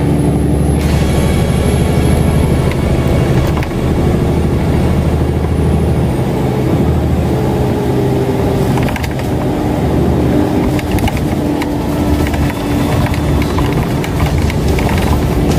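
Alexander Dennis Enviro500 MMC double-decker bus heard from inside while under way: the diesel engine and drivetrain run steadily under road noise, the engine note shifting a little in pitch.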